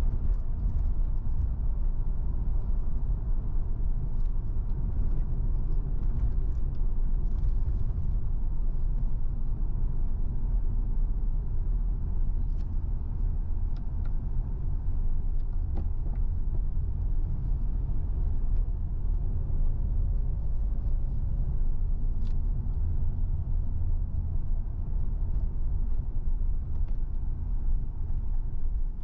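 Car driving along at steady speed: a constant low rumble of road and engine noise, with faint scattered clicks.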